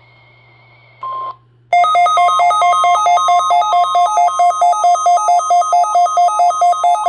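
Midland weather radios (WR-120 and ER-10VP) sounding their alert for a NOAA Required Weekly Test: after a short single beep about a second in, loud rapid electronic beeping begins. It pulses several times a second between two alternating pitches, with a second beeping pattern overlapping.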